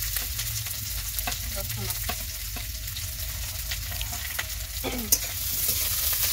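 Chopped onion and garlic sizzling in hot mustard oil in a steel kadai, stirred with a metal spatula that clicks and scrapes against the pan; one sharp click about five seconds in.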